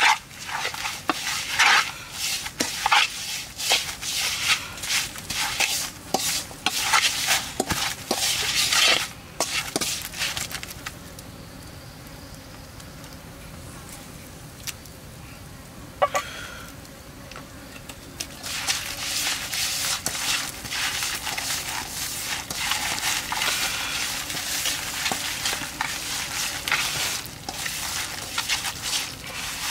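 Wooden pestle stirring and scraping a moist spice and seasoning mix around a nonstick pan in quick, irregular strokes, then a quieter stretch with a single click. After that, hands rubbing and kneading the mixture in the pan make a steady rustling.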